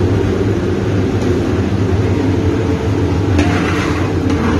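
Steady low drone of commercial kitchen equipment running. About three and a half seconds in there is a brief rushing noise for about a second.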